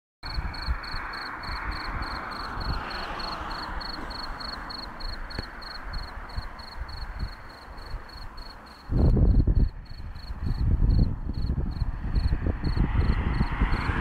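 Crickets chirping: a steady run of short, high chirps at one pitch, about three to four a second. From about nine seconds in, low rumbling on the microphone becomes the loudest sound, over a steady background hiss.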